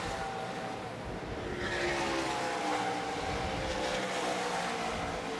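Race engines running at speed on the track, several at once, their pitch sliding slowly down as they pass.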